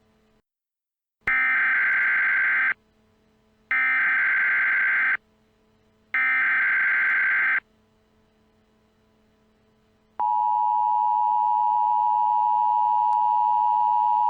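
Emergency Alert System signal: three harsh, buzzy bursts of SAME header data, each about a second and a half long, then, about ten seconds in, the steady two-tone EAS attention signal starts and holds.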